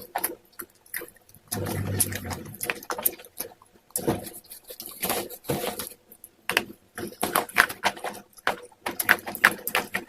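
Close-miked crunching and chewing of soft white slate eaten with a thick wet slate paste: irregular runs of sharp, crisp cracks and crackles with short pauses between bites.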